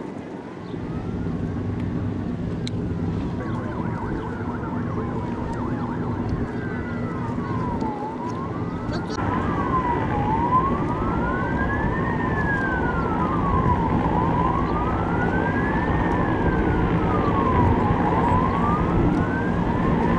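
Sirens from the marine police boats: one wails slowly up and down, about one rise and fall every four seconds, and about nine seconds in a second joins with a fast warble. Under them runs a steady low engine rumble.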